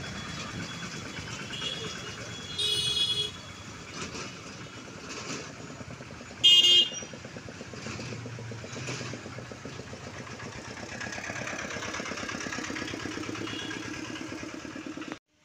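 Road traffic running past: motorcycle and small-vehicle engines, with two short vehicle horn honks about three and six and a half seconds in, the second the loudest. Near the end an engine's steady pulsing grows louder, then the sound cuts off suddenly.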